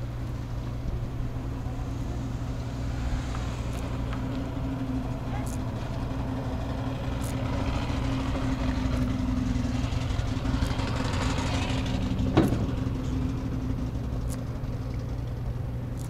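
Steady low hum of an idling engine, with a rush of noise that swells to a peak about twelve seconds in and then fades, as of something passing. One sharp knock comes at the peak.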